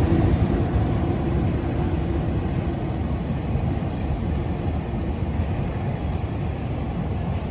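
Freight train hauled by an EH500 electric locomotive rolling past: a steady rumble and clatter of wagon wheels on the rails, easing off gradually.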